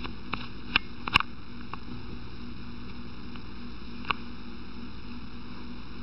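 Steady hiss with a low hum, broken by a few sharp light taps: a cat's paws striking a hardwood floor as it bats at something. Three taps come close together within the first second and a half, and one more about four seconds in.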